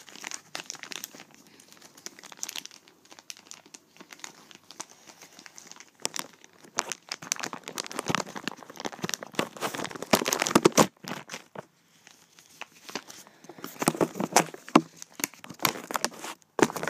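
Clear plastic bag crinkling and rustling as it is handled and opened, in irregular bouts that are busiest about halfway through and again near the end.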